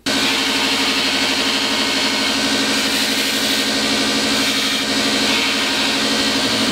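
Home-built belt grinder, driven by a 3 hp, 3000 RPM electric motor and fitted with a Scotch-Brite belt, running steadily: a loud, even hum with a bright hiss over it. It starts and stops abruptly.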